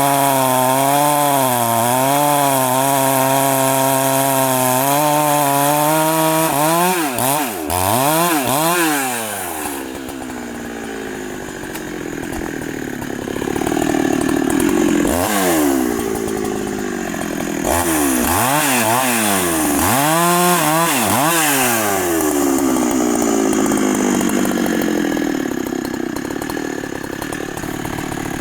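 Large two-stroke Husqvarna chainsaw held at a steady high pitch for about six seconds, then revved up and down over and over, with its pitch sliding down near the end.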